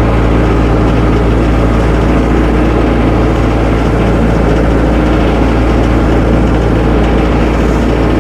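Tractor engine running steadily at a constant speed while the tractor is driven slowly back and forth on tire chains.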